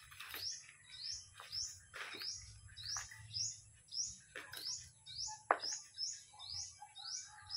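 A small bird chirping steadily, about two short rising chirps a second, over a faint steady high whine. Mixed in are a few short knocks and rustles of soil being pressed into a pot by hand, the sharpest one a little past halfway.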